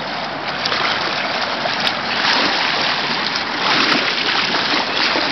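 Steady rush of flowing water, swelling a little in places.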